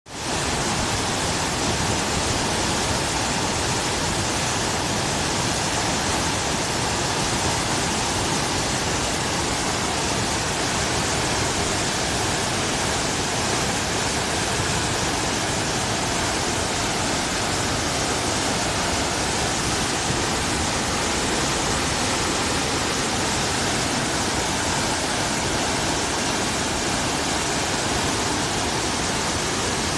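Floodwater of a swollen river rushing past in a steady, dense rush, the river running high after typhoon rain.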